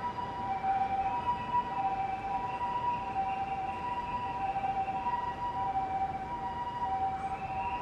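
Japanese ambulance siren sounding its two-tone 'pi-po' call, alternating steadily between a high and a low note.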